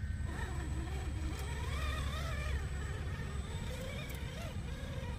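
Vanquish Phoenix RC rock crawler's electric motor and geartrain whining as it crawls over boulders, the pitch wavering up and down with the throttle, over a low steady rumble.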